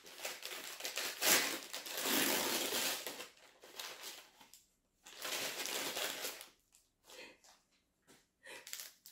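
Brown paper bag being torn open and crinkled by hand: a long rustle of paper at first, another about five seconds in, then a few short rustles.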